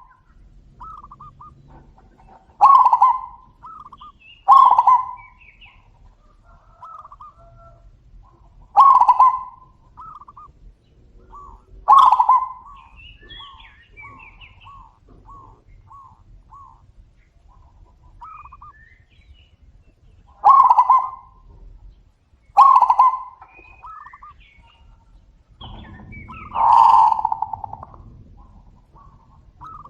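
Zebra doves cooing back and forth. Seven louder calls come a few seconds apart, the last one longer, with softer runs of short, evenly spaced cooing notes between them.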